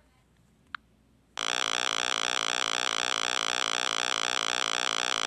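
Near silence, then about a second and a half in an 8-bit style synthesized helicopter sound effect starts: a steady, rapidly pulsing electronic buzz.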